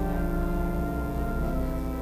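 Organ playing slow, sustained chords as instrumental prelude music.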